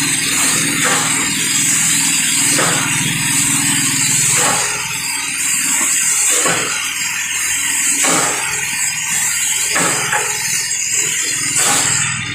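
Carpet extractor cleaning wand running, a steady loud rush of suction over a low machine hum. The rush changes briefly with each push-and-pull stroke over the carpet, about every one and a half to two seconds.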